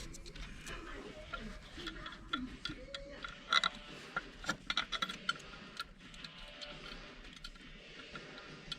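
Irregular light clicks and metallic ticks of hand tools fastening the ignition coil bolts, over faint background music.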